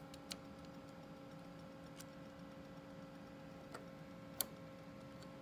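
A few scattered, faint metallic clicks as a steel eye bolt and shoulder bolt are handled and turned by hand on a linkage arm. The sharpest click comes about four seconds in. A steady low hum runs underneath.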